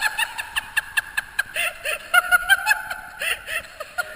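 High-pitched laughter in a quick string of short bursts, several a second, which keeps going without a break.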